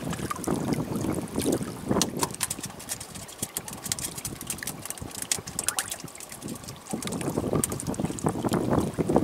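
Wind buffeting the microphone and water moving against a wooden boat's hull, with many quick, irregular sharp clicks and taps through the middle.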